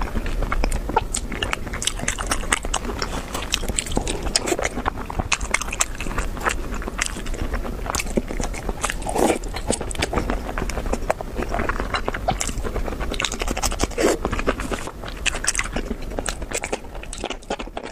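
Close-miked wet chewing and biting of soft, gelatinous meat and enoki mushrooms dripping with chili-oil broth: a dense run of smacking, squelching mouth sounds and small clicks, with food being sucked into the mouth.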